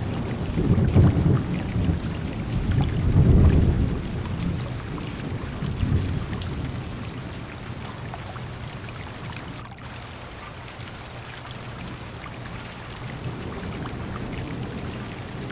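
Heavy rain pattering on a car window with rolling thunder; low rumbles swell about a second in, around three seconds in and again near six seconds, then the thunder eases while the rain goes on.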